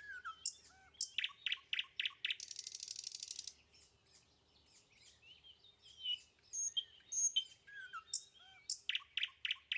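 Small birds chirping, with short rising and falling calls and a fast high trill about two and a half seconds in that lasts about a second. More chirps cluster near the end.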